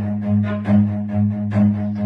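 Background music: a low, steady bass line pulsing about twice a second, with short higher notes above it.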